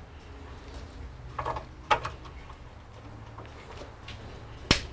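Cables and connectors being handled inside a metal computer case: a few knocks and clicks about a second and a half in, and one sharp click near the end, over a low steady hum.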